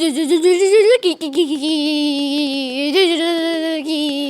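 A person's voice imitating a Suzuki Gixxer motorbike engine. It is a warbling hum that climbs in pitch, breaks off briefly about a second in, then holds one long, steady tone that sinks slowly.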